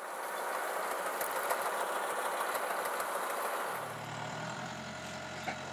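Farm tractor engine running with a rough, noisy clatter over it; a steady low engine hum comes through clearly after about three and a half seconds.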